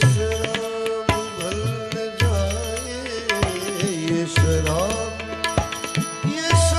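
Indian ghazal music: a sliding, wavering melody over tabla, with deep bass strokes about every two seconds and a steady drone underneath.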